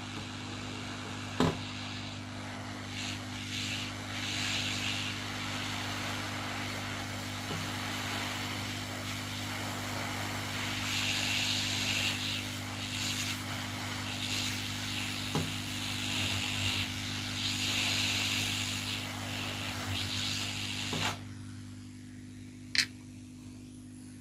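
Hot-air rework station blowing steadily while ICs are desoldered from a TV power supply board. The airflow cuts off suddenly about 21 seconds in, leaving a steady electrical hum. There is a sharp click near the start and another near the end.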